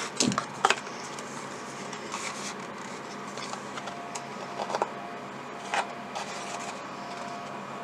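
Light clicks, taps and rustles of a camera's plastic retail packaging being handled, a few scattered touches over a steady background hiss.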